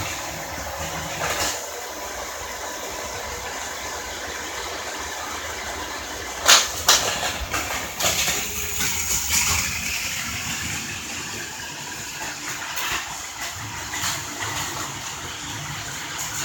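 Vintage battery-powered Plarail toy trains and vehicles running on plastic track: a steady motor whir with clattering clicks, the sharpest two about six and a half and seven seconds in.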